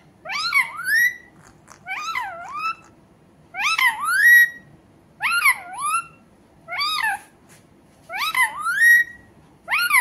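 Indian ringneck parakeet calling in a steady series: about seven loud calls roughly every one and a half seconds, each of two or three quick notes that dip and then sweep up in pitch.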